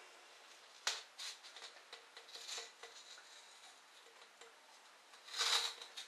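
Faint handling of masking tape and an aluminium drink can: a click about a second in, light rustling and tapping, then a short rasp near the end.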